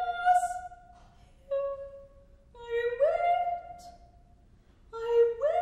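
Solo soprano singing alone in four short phrases separated by pauses. The later phrases each slide up from a lower note to a held higher one.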